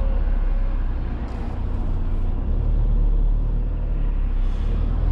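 Motorhome engine and road noise while driving, heard from inside the cab: a steady low drone.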